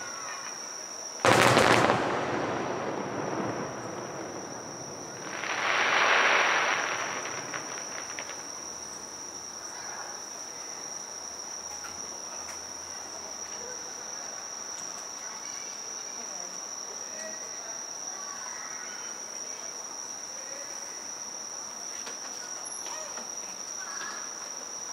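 An aerial firework shell, a large gold chrysanthemum, bursts with one loud boom about a second in, and its rumble fades over the next couple of seconds. A softer rushing swell rises and dies away a few seconds later. After that a steady, high-pitched insect trill, crickets, carries on alone.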